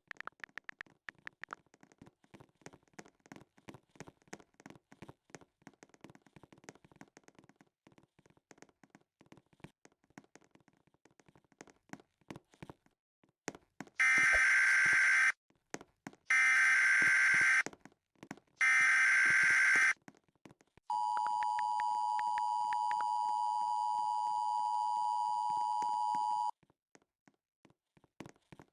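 Emergency Alert System tornado warning signal: three harsh, buzzy data bursts of about a second each, then the steady two-tone attention signal held for about five seconds before it cuts off. Faint clicking comes before the bursts.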